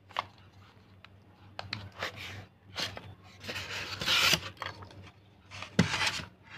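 Unboxing handling noises: rustling of plastic packaging and rubbing against a styrofoam packing tray, with scattered light clicks. The loudest rustle comes about four seconds in.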